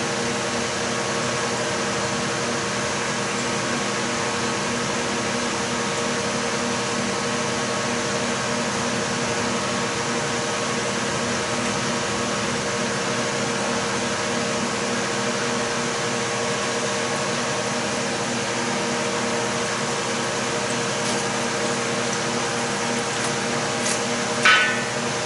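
Steady mechanical hum and hiss holding several steady tones, with no change throughout. A single sharp clink with a brief ring stands out near the end.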